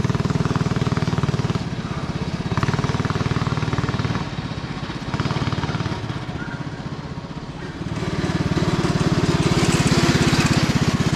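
Go kart's 301cc single-cylinder four-stroke engine running as the kart is driven. The engine grows fainter around the middle as the kart is far off, then louder over the last few seconds as it comes back close, with a rushing hiss as it nears.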